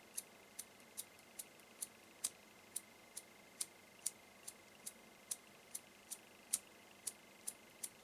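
Metal Clipper petrol lighter's flint wheel struck with the thumb over and over, a long run of short dry clicks at an even pace of about two and a half a second, never catching. The fuel has only just been refilled and has not yet soaked through, as the owner explains.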